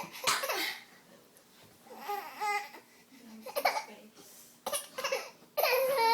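Fake coughing traded between a young boy and a five-month-old baby: short cough-like bursts every second or so. The baby makes high pitched vocal sounds among them.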